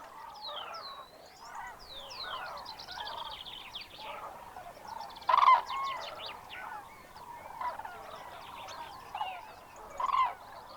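Many birds calling at once: high falling whistles and quick trills over lower, arched calls, with two louder calls about halfway through and near the end.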